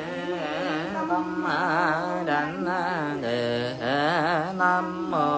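A single voice chanting a slow, drawn-out melodic line in Vietnamese Buddhist liturgical style, its pitch wavering in a heavy vibrato. The chant runs as several long sustained phrases and stops abruptly at the end.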